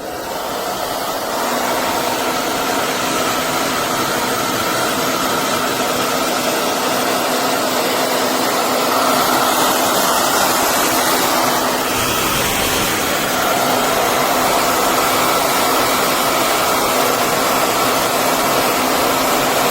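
Conair Infiniti Pro 1875W hair dryer running: a loud, steady rush of blown air with its fan motor. It comes up to full strength in the first second or two.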